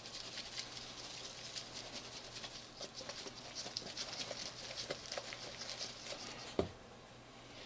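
Rustling and light pattering of a piece of fish being tossed by hand in a plastic tub of dry flour, masa and instant-potato coating, with one sharp knock about six and a half seconds in.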